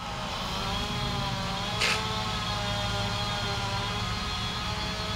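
Fire engine's engine running steadily at constant speed, with one short hiss about two seconds in.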